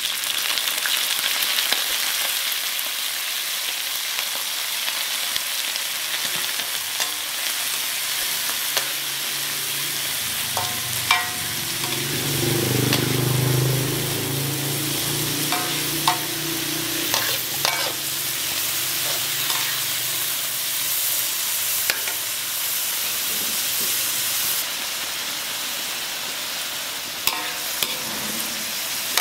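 Insect larvae sizzling in hot oil in a steel wok as they are stir-fried, with a metal spatula scraping and clinking against the wok now and then. A low rumble swells briefly about halfway through.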